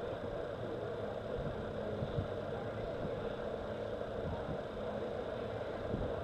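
Steady mechanical hum like an idling engine, with a low drone and no change in level.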